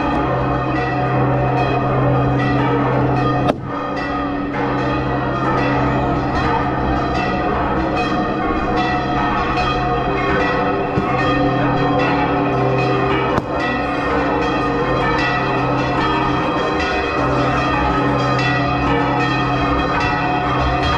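Church bells pealing continuously, several bells ringing together in a dense, overlapping clangour, with a sharp knock twice.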